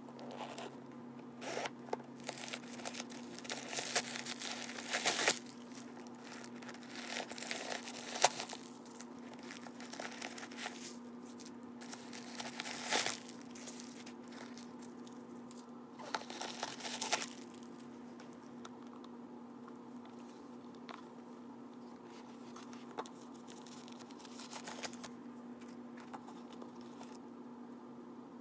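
Crumpled paper stuffing crinkling and rustling in irregular bursts as it is handled and pulled out of a cosmetic case, loudest in the first half, with a faint steady hum beneath.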